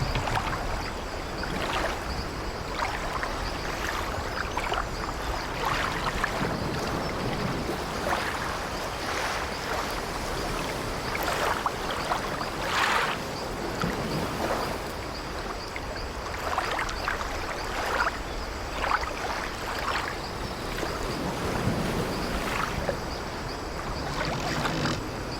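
Sea waves washing against an old wooden sailing ship, with the ship's timbers creaking now and then in short strokes over a steady wash of water and wind.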